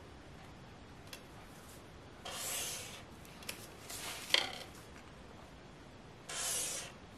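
Black marker drawn along a ruler across a board, two strokes about four seconds apart, each a short scratchy swish lasting under a second. A sharp click sounds between them.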